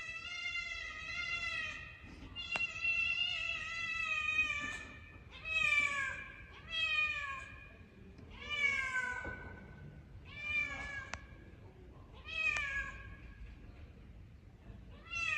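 A cat meowing repeatedly: two long drawn-out meows, then shorter meows every couple of seconds, each falling in pitch at the end.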